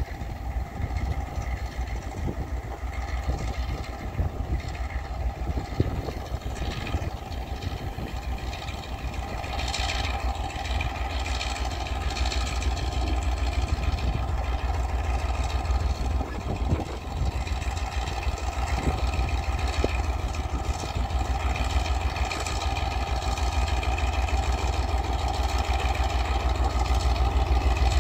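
EMD G22U diesel-electric locomotive with its 12-cylinder two-stroke engine running as it approaches at low speed, the engine sound growing steadily louder toward the end.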